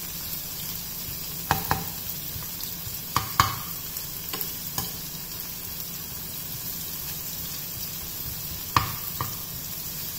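Chopped onions and cumin seeds sizzling steadily in hot oil in a frying pan, being cooked until transparent. A steel spoon stirs them, with sharp clinks and scrapes against the pan, loudest about three and a half seconds in and again near the end.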